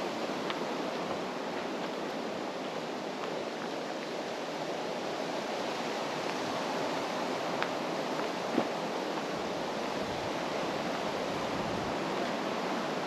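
Steady rushing of wind through ironwood trees, an even hiss with no let-up.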